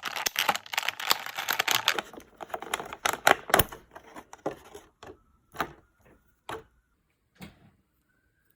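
Plastic packaging crinkling and rustling, then a run of separate sharp clicks and light knocks that grow sparser, as the packaging and a die-cast toy robot are handled.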